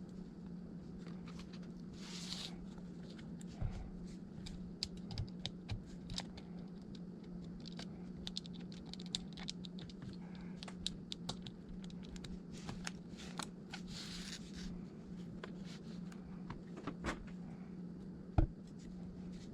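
Scattered small clicks, taps and scrapes of an iPad and repair tools being handled on a workbench, with two brief rustles, about two seconds in and near the middle. A steady low hum runs underneath.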